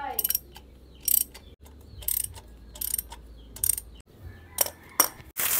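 A hand tool fastening a motorcycle exhaust pipe to its header: short bursts of clicking, roughly one a second.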